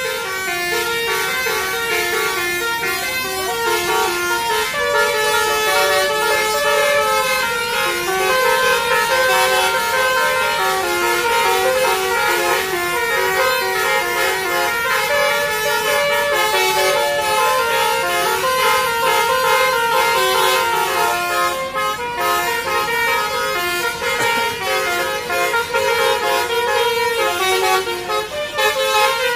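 Melodic basuri bus horn, a multi-tone electric air horn, playing a tune as a continuous run of short stepped notes.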